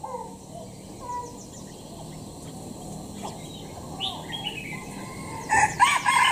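A caged songbird giving short chirps and whistled notes, scattered at first and louder and busier near the end.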